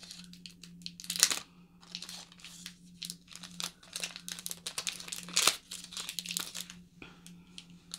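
Crinkling and tearing of wrappers as makeup brushes are unwrapped by hand: irregular rustles, with sharper crackles about a second in and again about five and a half seconds in.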